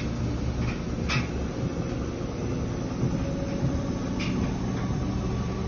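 GE smart front-load washer running: a steady rumble of the drum and motor with a faint hum, and a light click about a second in and again about four seconds in.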